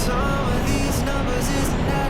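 Background music with a melody of held notes over a steady low rumbling noise.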